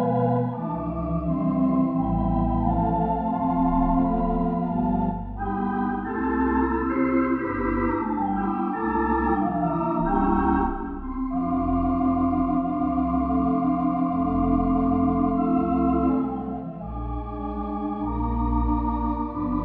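Virtual Wurlitzer theatre pipe organ (Hauptwerk, Modern Fox Wurlitzer sample set) playing a popular song. A melody runs over held chords, with pedal bass notes underneath.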